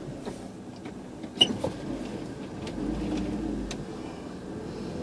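Car driving slowly, heard from inside the cabin: a steady low hum with a low engine rumble swelling around the middle as it turns. A sharp click about a second and a half in is the loudest sound, with a few fainter ticks scattered around it.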